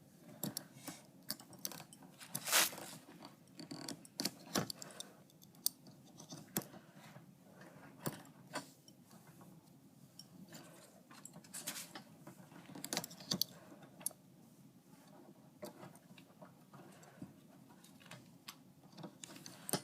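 Latch hook being worked through rug canvas with yarn: irregular small clicks and scratchy rustles, a few of them louder.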